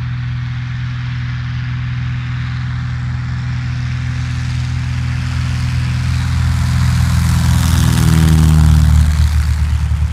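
A Cessna 172C's Continental O-300 six-cylinder engine and propeller at full takeoff power during the takeoff roll. It grows steadily louder as the plane approaches and passes close by about eight to nine seconds in, and the pitch drops as it goes past.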